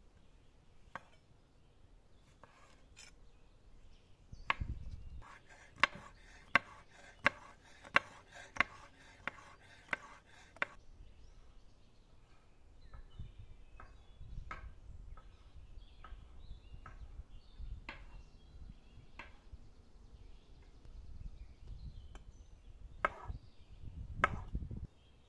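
Kitchen knife chopping pickled cucumbers on a stone countertop, the blade knocking sharply on the stone. A run of about eight evenly spaced strokes comes in the middle, then lighter, scattered cuts and two louder knocks near the end.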